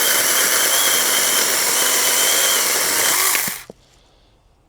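Saker mini 4-inch battery electric chainsaw running at full speed with a high, steady whine, cutting through a branch, then cutting off abruptly about three and a half seconds in.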